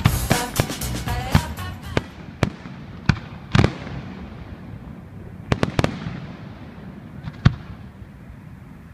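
Fireworks going off: a string of sharp, irregularly spaced bangs with short echoes, the loudest about three and a half seconds in. Music fades out in the first couple of seconds.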